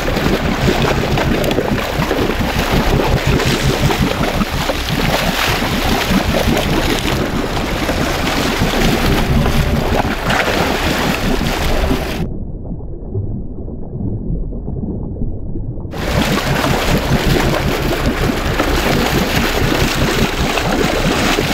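Loud rushing and splashing water as a blue marlin thrashes against the side of a sportfishing boat. For about four seconds past the middle the sound turns muffled and dull, then comes back full.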